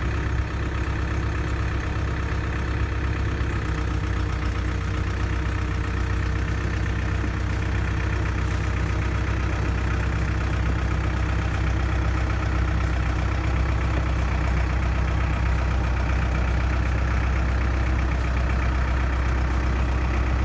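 Diesel engine of a 2001 New Holland LB75B backhoe loader running steadily at idle, still warming up shortly after a cold start.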